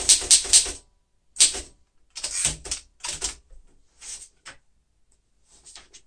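1940 Royal Signet manual typewriter being typed on, sharp keystroke clacks at about three or four a second, stopping just under a second in. A few irregular single clacks and knocks follow.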